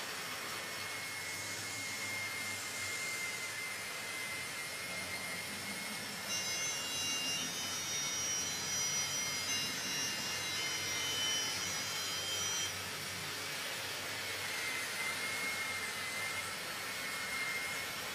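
Steady hiss with a thin whine from the small electric motors of model vehicles running on a model railway layout. From about six seconds to about thirteen seconds in, a cluster of higher whining tones joins in and the sound grows a little louder as a model train runs past.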